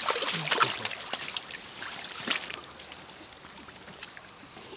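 Pond water splashing and sloshing, a run of sharp splashes over the first two seconds or so, then settling to a quieter, steady wash.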